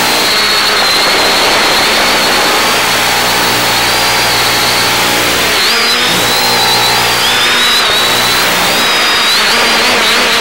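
Steady loud hiss under a high-pitched whine of several tones that waver and drift apart and together, from the X550AIOP quadcopter's electric motors heard over the analog FPV video downlink.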